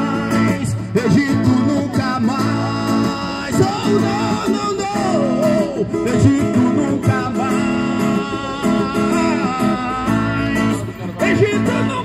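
A man singing into a microphone over a strummed acoustic guitar.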